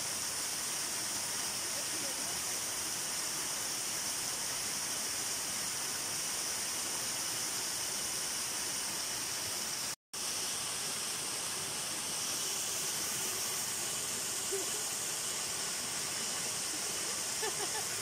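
Small waterfall splashing into a rock pool, a steady rushing hiss of falling water. It cuts out completely for an instant about halfway through.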